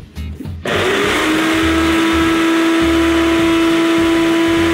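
Ninja Professional personal blender starting about half a second in. Its motor spins up quickly to a steady high whine as it grinds rolled oats into oat flour, running in one continuous stretch.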